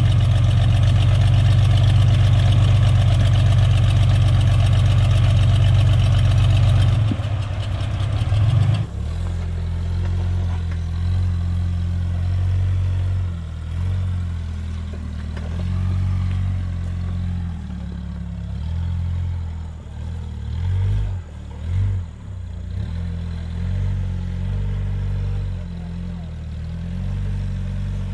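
Off-road rig's engine running loud and steady at first. From about seven to nine seconds in it drops to a lower, uneven running that rises and falls with the throttle, with a couple of short revs near 20 and 22 seconds.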